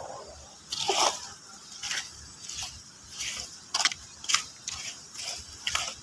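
Irregular crunches and scrapes, roughly one to two a second, of plastic litter being prodded and gathered off gritty concrete with a long litter picker.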